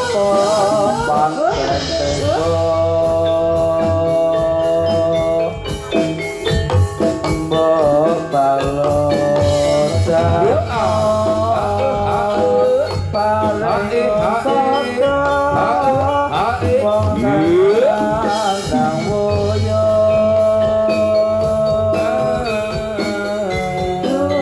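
Javanese gamelan ensemble playing jathilan music, with a melody of long held notes and occasional slides over a steady drum and bass beat.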